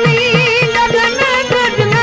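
Devotional bhajan music: an ornamented melody that wavers up and down in pitch, over regular hand-drum strokes.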